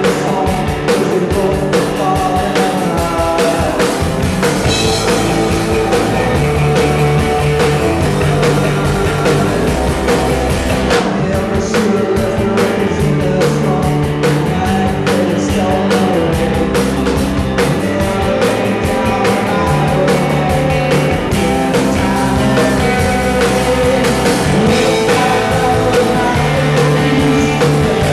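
Live rock band playing at full volume: electric guitars, bass guitar and drum kit, with a male lead vocal singing over them.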